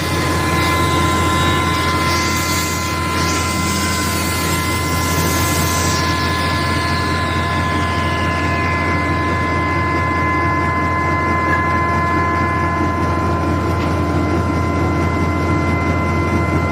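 SWLF-200 grinding mill (pulverizer), a 4 kW motor spinning at 4300 rpm, running steadily with a constant hum and a high whine, with a few rising-and-falling sweeps of pitch in the first few seconds.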